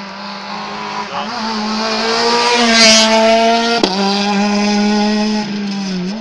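Rally car engine held at high revs as the car approaches along the stage, growing louder. About four seconds in it breaks off abruptly and another high-revving engine note takes over.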